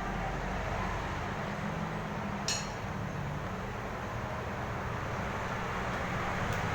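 A single sharp metallic click from handling the M16A1 rifle and its magazine, about two and a half seconds in, over a steady low background rumble.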